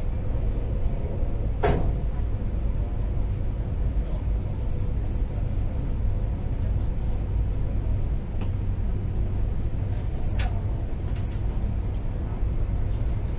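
Interior of an MTR Tuen Ma Line IKK-Train with the doors closed as the train pulls out of a station: a steady low rumble of the train running, with two sharp clicks about two seconds in and about ten seconds in.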